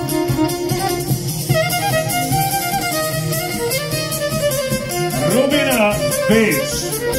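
Bosnian Posavina folk music for a kolo dance: a fiddle playing the melody over a steady, even beat. About five seconds in, a voice slides up and down briefly over the music.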